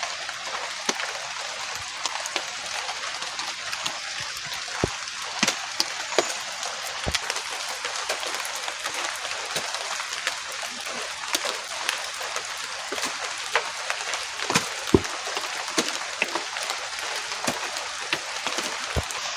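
Steady rain falling, with many individual drops striking close by as sharp, irregular taps.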